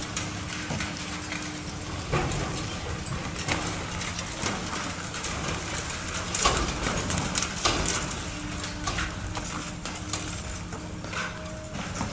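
Heavy machinery running with a steady low engine hum, under frequent irregular knocks and clatter.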